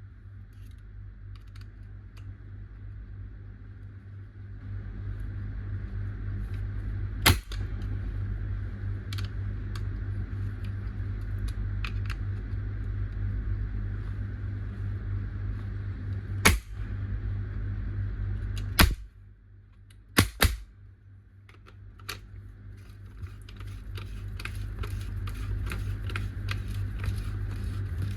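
Five sharp cracks over a steady low hum, the last two close together, then a rapid run of light clicks near the end.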